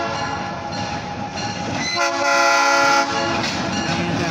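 Alco S-2 switcher locomotive's air horn sounding for a grade crossing. One blast fades out at the start and a second blast of about a second begins about two seconds in, then the locomotive's diesel engine and wheels are heard as it reaches the crossing.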